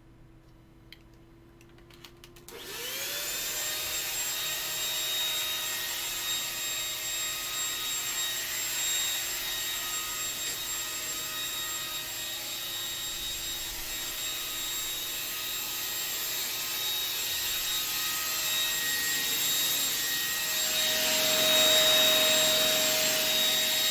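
A few clicks, then a household vacuum cleaner is switched on about two and a half seconds in. Its motor whine rises as it spins up, and it then runs steadily with a high whine, getting louder near the end.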